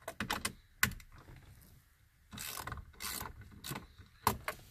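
Socket ratchet clicking in short strokes and brief rasping runs as an 8 mm airbag mounting bolt is backed out of a steering wheel.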